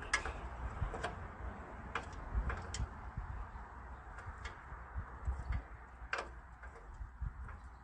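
Scattered sharp metallic clicks and taps of a crescent wrench working a stubborn factory bolt on a car's radiator support, irregularly spaced, over a steady low rumble.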